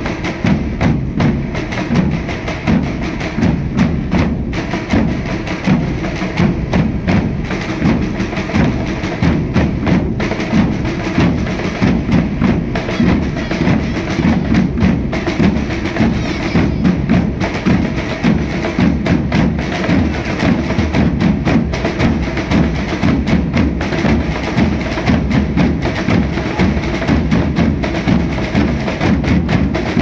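A Portuguese drum group drumming together: about ten side drums struck with pairs of sticks in dense, rapid strokes over a large bass drum, kept up steadily without a break.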